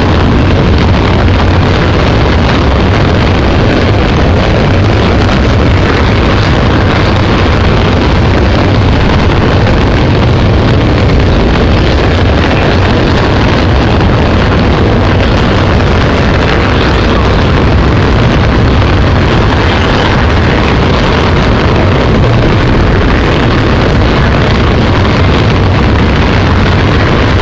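Passenger train running across a steel truss rail bridge, a loud steady rumble heard from an open carriage window.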